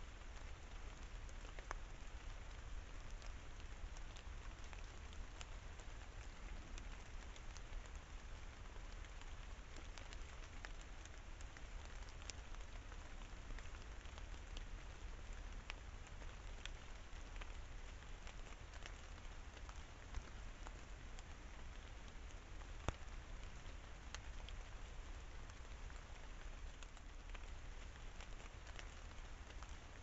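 Rain pattering and dripping on wet leaf litter and foliage: a steady hiss of rain dotted with many small drop ticks, a couple of sharper drips about 20 and 23 seconds in, and a low steady rumble underneath.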